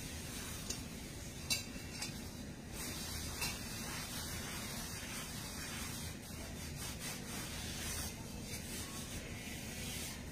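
Cloth rubbing cooking oil over a cast iron cauldron to season it, with a couple of light knocks against the pot.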